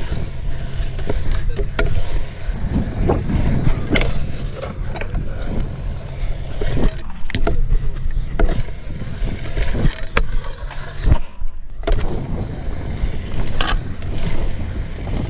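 Stunt scooter wheels rolling on a concrete skatepark bowl, a steady rumble broken by sharp clacks many times as the wheels strike joints and edges and the deck lands.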